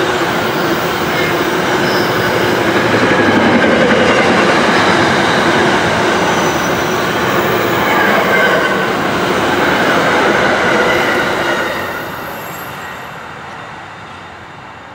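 Container freight train's wagons rolling past on the rails, a loud steady rolling rumble and rattle. It fades away over the last few seconds as the end of the train passes.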